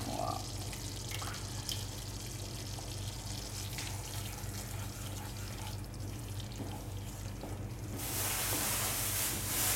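Thick masala cooking in a frying pan and stirred with a wooden spatula, over a steady low hum. About eight seconds in, a louder sizzling hiss starts suddenly as kingfish pieces go into the hot masala.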